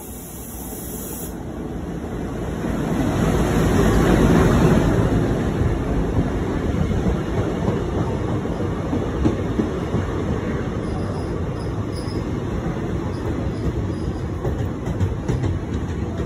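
Passenger train pulling into a station behind a WDM-3A diesel locomotive: the engine's rumble grows to its loudest about four to five seconds in as it passes, then the coaches roll by with a steady rumble and wheel clicks over the rail joints as the train slows to stop, with a few brief high squeals in the second half.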